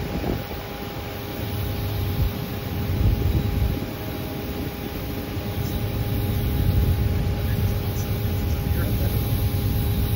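Norfolk Southern freight train's diesel locomotives approaching, their engines running with a low, steady rumble that grows louder toward the end.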